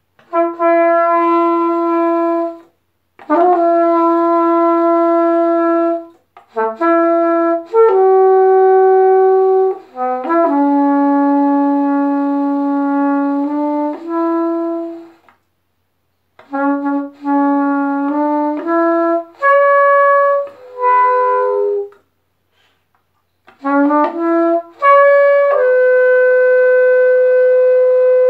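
Solo trumpet playing a slow melody in phrases of sustained notes with short breaths between them, pausing twice, then holding one long note near the end.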